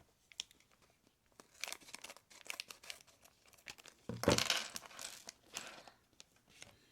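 A LEGO minifigure blind-bag packet being torn open and crinkled by hand, in scattered crackly bursts, loudest about four seconds in.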